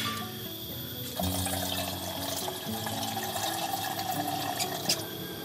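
Water running from a plastic jerrycan's spigot into a small metal kettle, starting about a second in and stopping shortly before the end. Background music plays under it.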